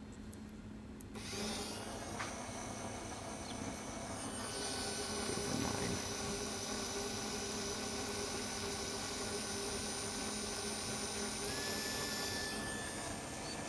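Small electric motor running under Morse-code speed control. It comes on about a second in, speeds up and gets louder about four seconds in, then runs steadily with a whine whose pitch steps up slightly near the end.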